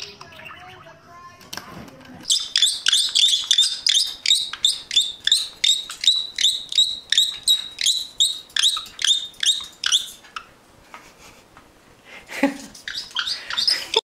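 A caique gives a fast run of loud, shrill chirping calls, about three a second, each a quick upward sweep, for around eight seconds. It then stops, and a few shorter, different sounds start near the end.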